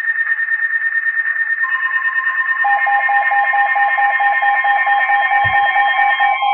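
Emergency alert attention tones ahead of a severe thunderstorm warning: several steady and rapidly pulsing electronic tones sound at once. A lower pulsing tone joins about two and a half seconds in, and there is a brief low thump near the end.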